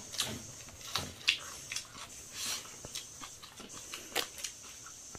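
Eating sounds: chewing and lip smacks, a scatter of short sharp clicks, with fingers working rice on steel plates.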